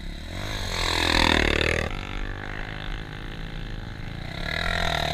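Enduro dirt bike engine running, with one rev that rises and falls between about half a second and two seconds in.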